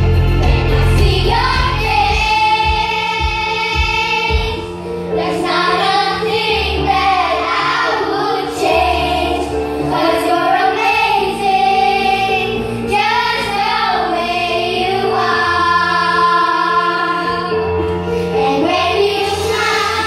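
Children singing a song together with instrumental accompaniment, holding long notes with vibrato.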